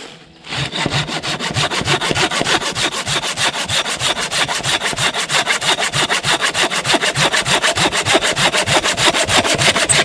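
Hand saw cutting through wood in fast, even back-and-forth strokes, starting about half a second in.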